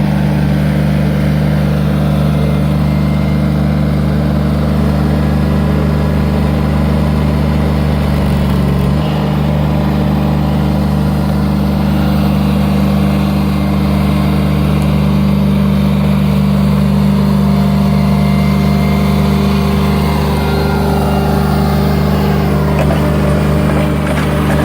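An engine idling steadily, its tone shifting briefly about nine seconds in.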